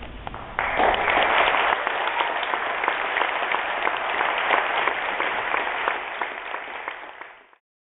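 Audience applauding, the clapping starting suddenly about half a second in, then dying away and cutting off near the end.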